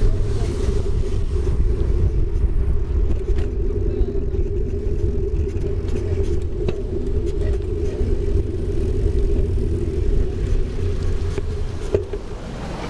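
Bicycle riding over asphalt: a steady low rumble from the tyres rolling and the airflow over the camera's microphone, with a few faint clicks along the way.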